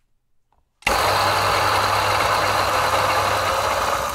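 Niche Duo coffee grinder with its 83 mm flat brew burrs starting up about a second in and grinding coffee beans at a pour-over setting: a sudden onset, then a loud, steady grinding noise over a motor hum.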